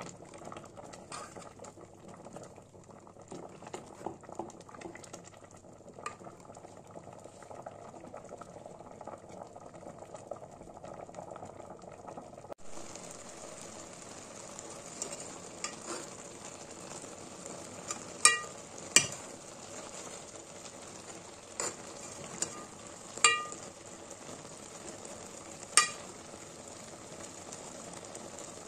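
Fish and taro leaves simmering and bubbling in a metal pot; after a cut the cooked dish sizzles steadily. Over the sizzle a metal ladle clinks sharply against the pot several times in the second half.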